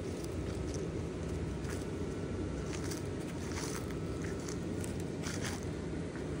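Steady low hum of the inflatables' electric blower fans, with footsteps crunching on grass and leaves every second or so.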